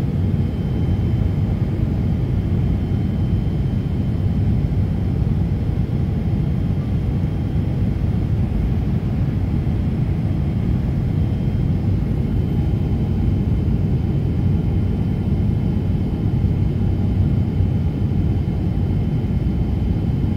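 Airliner cabin noise in flight, heard inside the cabin: a steady low rumble of the turbofan engines and rushing air, with a faint steady high whine.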